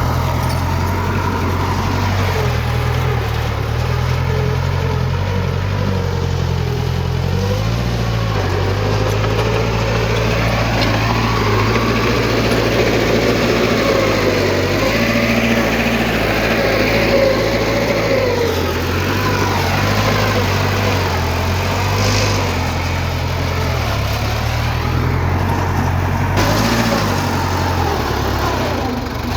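Heavy diesel engine of earth-moving machinery running steadily, its pitch wavering up and down as it works.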